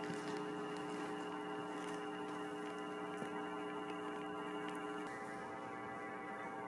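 Steady electrical hum, a stack of even, unchanging tones; one of the lower tones drops out about five seconds in.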